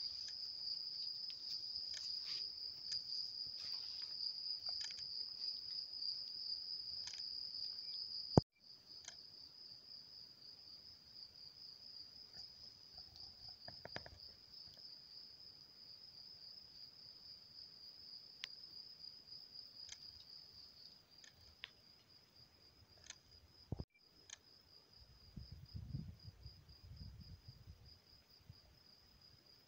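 Crickets trilling continuously, a high, finely pulsing note. A click about eight seconds in is followed by the trill carrying on more quietly, and a low rumble comes near the end.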